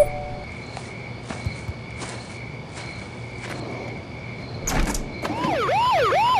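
A short whoosh about five seconds in, then a home security alarm siren starts up, sounding fast repeating rising whoops a little over two a second.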